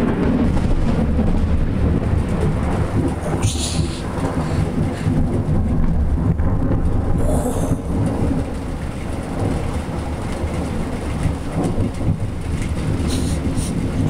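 A long, deep roll of thunder that starts abruptly and rumbles on without a break, easing a little midway and swelling again near the end.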